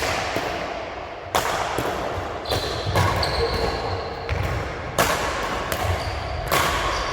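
Five sharp thuds at irregular gaps of one to two seconds, each trailing off in a hiss that dies away.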